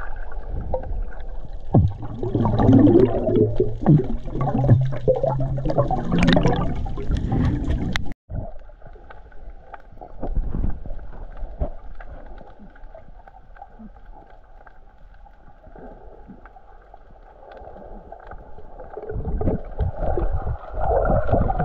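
Muffled water sounds heard through a diving camera's underwater housing: splashing and bubbling, loud and busy for about eight seconds. Then a sudden cut to a quieter, steady murmur of water that grows louder again near the end.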